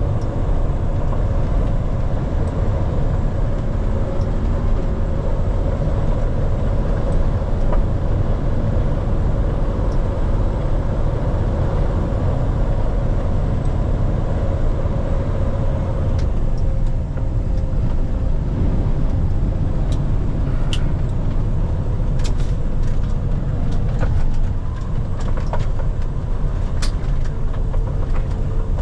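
A heavy rotator tow truck driving, with a steady low rumble of engine, road and strong wind buffeting. A faint steady tone fades out about halfway through, and a few sharp clicks come in the second half.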